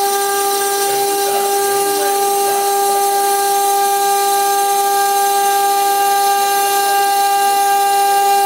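CNC-1224 router spindle running at a constant speed while its bit mills a circular groove into a stone slab: a steady high-pitched whine with many overtones, over the hiss of a water spray cooling the cut.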